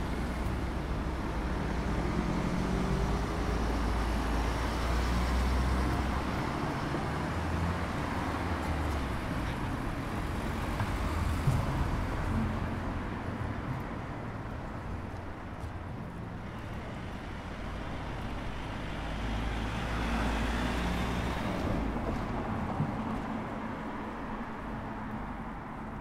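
Cars driving past on a city street: engine rumble and tyre noise swell and fade, once in the first several seconds and again about twenty seconds in. There is a brief knock about eleven seconds in.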